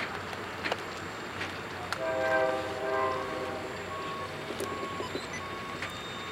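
Union Pacific passenger cars rolling slowly on curved track, wheels clicking over the rail. About two seconds in comes a brief, loud chord of several tones, followed by short faint squeaks.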